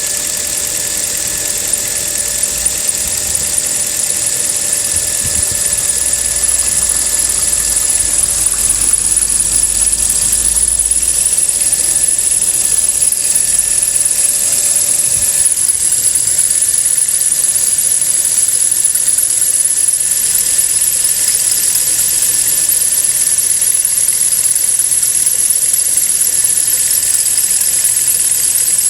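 Third-generation Kia Rio engine idling cold with a steady, high-pitched whistle from under the hood, its pitch creeping slowly upward. The whistle is the accessory drive belt squeal that these cars make when not yet warmed up and that fades after a few minutes.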